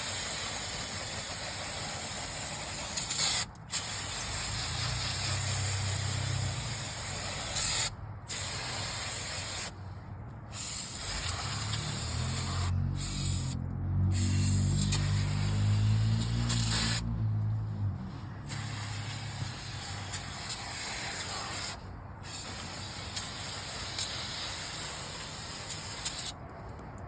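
Aerosol can of WD-40 brake cleaner spraying in long hissing bursts with short pauses between them, cleaning grime and rust off the brake hardware. A low rumble runs under the spray in the middle.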